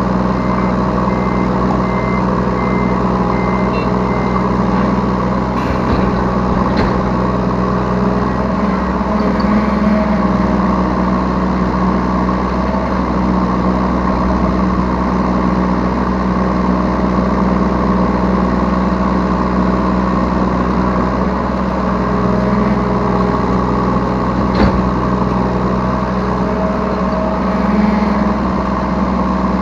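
Yanmar B3 Sigma 3-tonne mini excavator's diesel engine running steadily, heard from the operator's seat, swelling briefly twice as the machine works. A faint series of short beeps sounds in the first few seconds, and a few sharp clicks and knocks come through.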